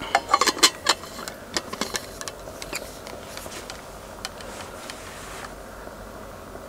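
A rapid run of sharp clicks and knocks over a steady low hum, densest in the first second and thinning out until about five and a half seconds in.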